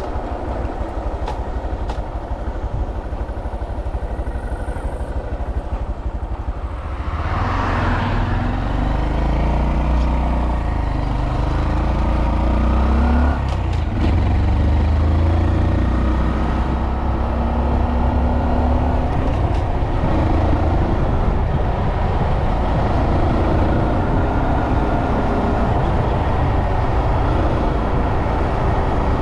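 Honda Monkey 125's single-cylinder four-stroke engine under way on the road. It picks up about seven seconds in, its pitch rising over several seconds. There is a brief break near thirteen seconds, and then it runs on steadily with wind noise.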